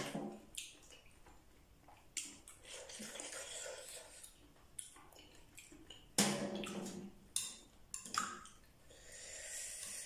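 A metal spoon clicks and scrapes against a glass bowl and scallop shells as seafood dipping sauce is spooned onto steamed scallops. Several sharp knocks are spread through it, the loudest about six seconds in, with soft wet eating sounds in between.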